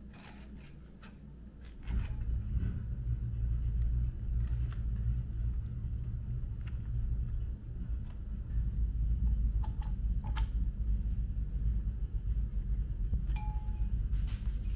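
Scattered light metallic clinks and taps of an engine cylinder being worked down over the piston and rings with a piston ring compressor. A steady low rumble starts abruptly about two seconds in.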